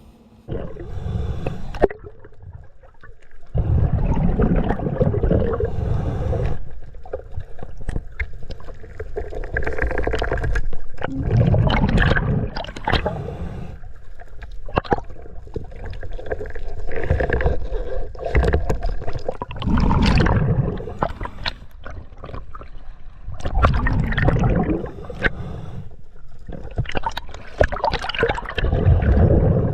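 Underwater gurgling of a diver's exhaled bubbles, coming in surges every few seconds with quieter gaps between breaths.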